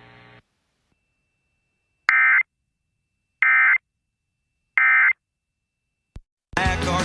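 Emergency Alert System digital data tones: three short, identical buzzing bursts about 1.3 seconds apart, the End of Message code that closes an alert. Near the end a louder, noisier sound with shifting pitches begins.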